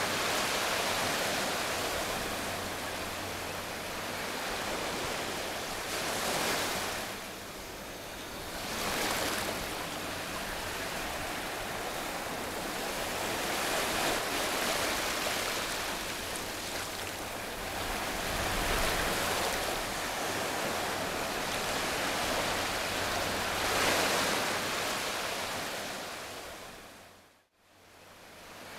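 A rushing wash of noise like surf, swelling and receding every few seconds over a faint low hum. It fades out shortly before the end.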